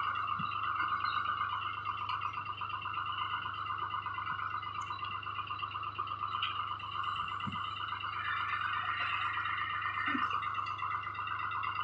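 Tractor-mounted backhoe at work: the tractor's engine runs steadily with a high buzzing whine, and there are a few faint knocks as the bucket digs into the soil.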